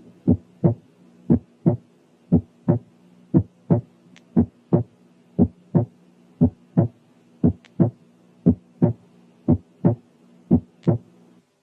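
Recorded heart sounds heard through a stethoscope: a steady lub-dub, about one beat a second, over a low steady hum. The second heart sound is accentuated, much louder than the first and with a ringing quality.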